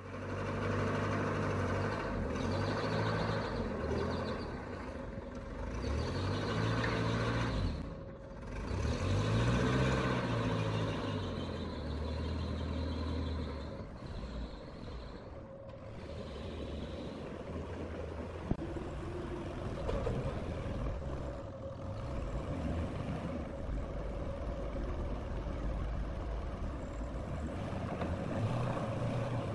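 Forklift engine running, revving up and falling back a few times in the first half, then running on more evenly while it moves a heavy timber block.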